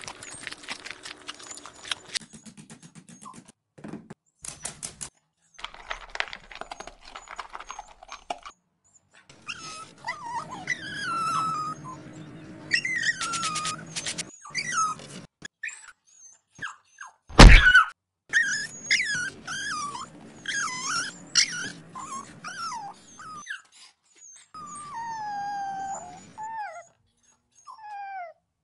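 Dog whimpering and whining in many short cries that slide up and down in pitch, mixed with bursts of rapid scratching as it digs at its bedding. One loud thunk about halfway through.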